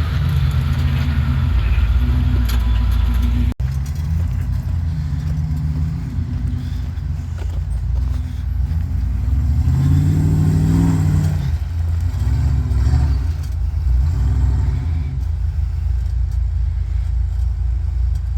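Off-road truck engine rumbling under load as it climbs the terrain, with a brief rev up and back down about ten seconds in. The sound drops out for an instant about three and a half seconds in.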